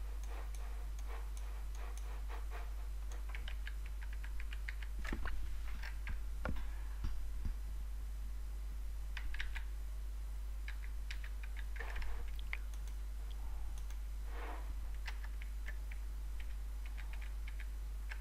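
Computer keyboard typing and mouse clicking in irregular runs of quick clicks, with a few heavier key knocks, over a steady low mains hum.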